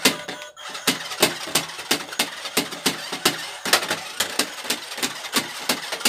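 Plastic RC stunt car tumbling and flipping over a wooden desk: its small electric motors whir while the plastic wheels and body knock against the wood about three times a second.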